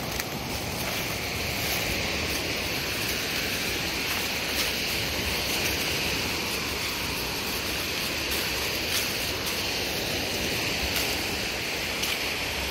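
Lake waves washing steadily onto the shore, a continuous even rush.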